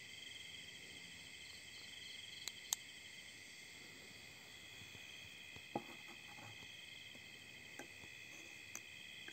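Steady chorus of night insects trilling, in the manner of crickets, with a few sharp clicks and knocks as flashlights are handled, the loudest just under three seconds in.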